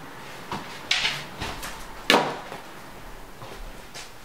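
A few sudden household knocks and bumps, the loudest a little after two seconds in, with another sharp one about a second in.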